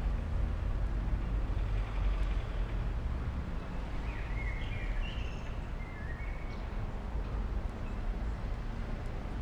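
Outdoor street ambience: a steady low rumble of traffic, with a few short bird chirps about halfway through.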